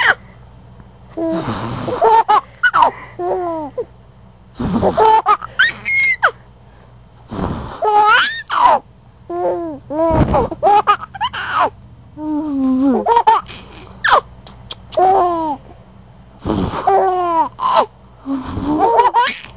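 A baby laughing in repeated bursts, a fresh burst every two to three seconds. The pitch of each burst rises and falls.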